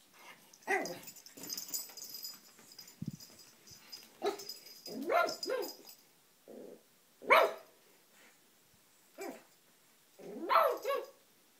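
Pug puppy giving a string of short barks and whining cries, about eight in all, with the loudest about seven seconds in. The puppy is protesting at a heart-shaped food bowl it dislikes.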